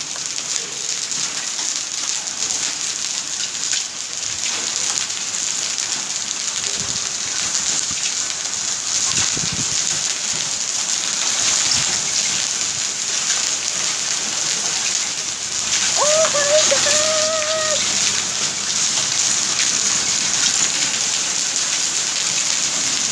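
Heavy rain mixed with hail pelting paving: a steady hiss with many small hits throughout. About sixteen seconds in, a short high call rises and then holds for a second or so.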